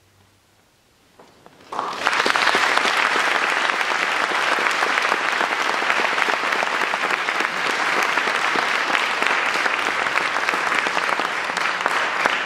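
Audience applauding at the end of a piece: a hush, a few lone claps about a second in, then full applause breaking out just before two seconds in and carrying on steadily.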